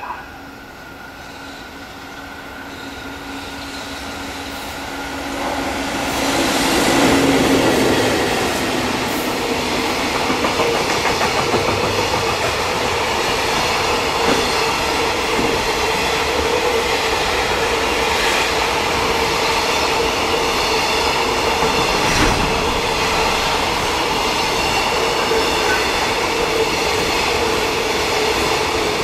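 JR Freight EF65 electric locomotive approaching and passing, getting louder over the first seven seconds. A long container freight train then rolls steadily past, its wheels clacking over the rail joints, with a steady ringing tone under the rolling noise.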